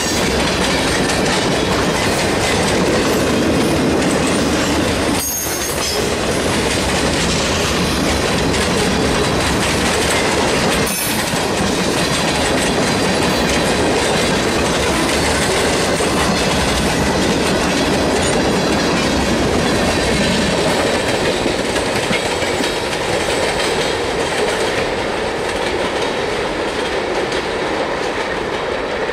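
Freight train's tank cars and boxcars rolling past close by: a steady rumble and clatter of steel wheels on the rails. It eases off over the last few seconds as the train draws away.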